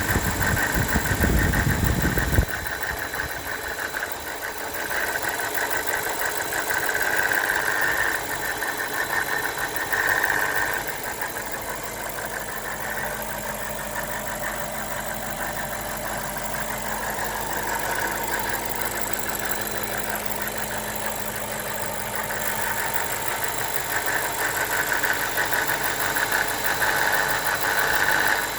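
BMW E60 545i's N62 4.4-litre V8 idling with a fast, steady rattle from the right-hand cylinder bank. A low rumble covers the first couple of seconds.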